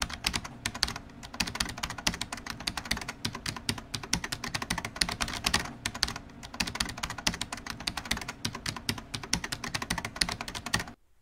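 Rapid typing on a computer keyboard, a dense run of keystroke clicks that cuts off suddenly near the end.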